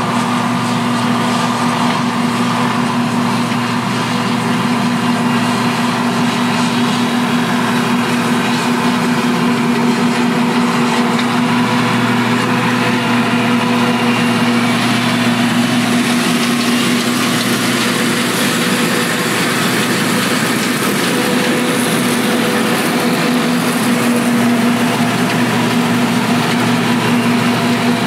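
John Deere S550 combine harvester running steadily while cutting and threshing wheat, its diesel engine and machinery giving a constant hum of unchanging pitch.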